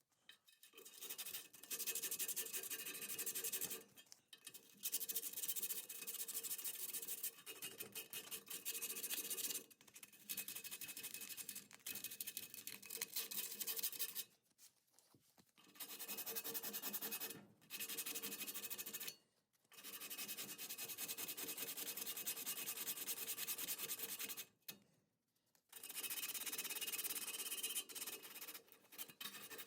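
Surface rust being hand-sanded off a steel body brace: rapid scratchy back-and-forth strokes in runs of a few seconds, with short pauses between runs.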